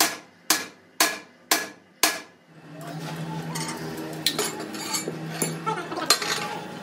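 Hammer blows on steel: five sharp, ringing strikes about half a second apart. They are followed by a few seconds of steady machine hum with clatter and clicks.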